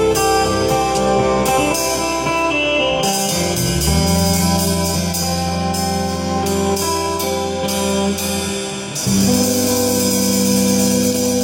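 Music with guitar, held chords changing every few seconds over a steady beat.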